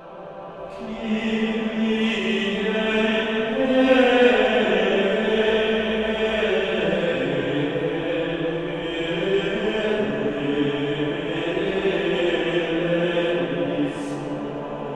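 Background music: a slow, sustained vocal chant, fading in over the first second or so.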